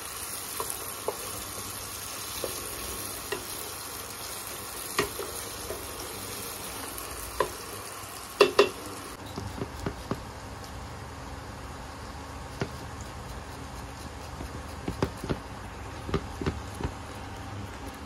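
Sliced onions frying in oil in a steel pot, a steady sizzling hiss, while a metal spoon stirs and scrapes against the pot; the loudest clatter comes about eight and a half seconds in. About nine seconds in the sizzling cuts off, leaving scattered light taps and scrapes as ginger is peeled over a plastic tub.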